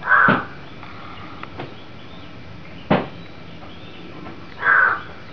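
Crow cawing: two harsh caws, one at the start and one near the end, with a single sharp knock about three seconds in.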